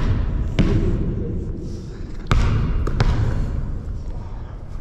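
Basketball bouncing on a hard court floor: three thuds, about half a second in, just after two seconds and again a moment later, over a steady low rumble.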